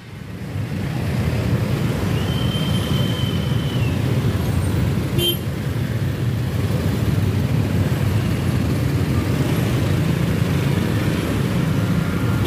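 Road traffic of motorcycles and a box truck crossing the tracks: a steady low rumble of engines that swells in over the first second. A short high tone sounds about two seconds in, and a sharp click comes about five seconds in.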